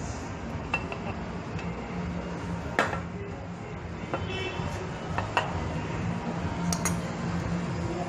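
Brass refrigerant hose fittings and a can-tap valve being handled and connected, giving about half a dozen sharp metallic clicks and clinks, the loudest about three seconds in, over a steady low hum.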